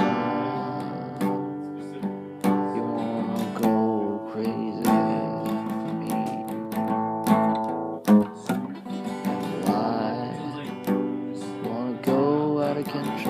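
Acoustic guitar strumming chords, a music track with strong pitched notes throughout and possibly some wordless vocal lines.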